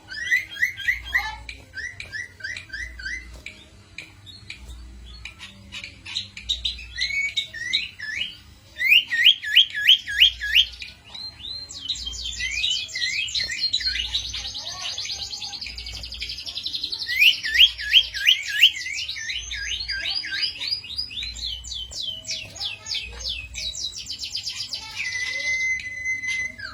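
Cito bird singing: fast runs of sharp chirps and trills that sweep up and down, coming in bursts with short pauses between, loudest about a third and two thirds of the way through. A faint low pulse beats about once a second underneath.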